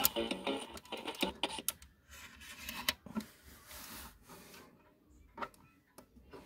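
Small plastic clicks and knocks as fingers press the buttons and keys of a palm-sized model personal computer and handle its plastic case. Music from its speaker cuts off with a click right at the start.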